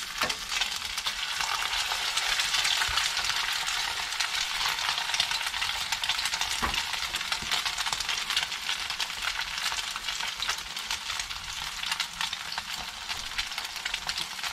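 Dungeness crab cakes sizzling and crackling in about an eighth of an inch of hot canola oil in a cast-iron skillet, a dense spitting hiss of tiny pops. The sizzle is loudest a couple of seconds in, then settles to a steady fry.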